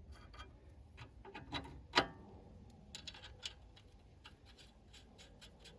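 Light metallic clicks and ticking as lug nuts are run onto the wheel studs: a few separate clicks with a sharper one about two seconds in, then a quicker, fairly regular ticking toward the end.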